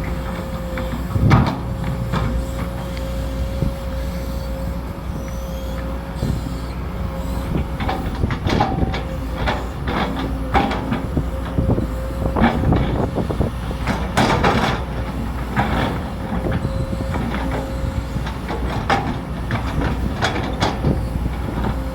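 Sumitomo SH210 excavator working: a steady low engine rumble with a steady whine, and irregular metallic clanks and knocks throughout, a cluster of them about two-thirds of the way through.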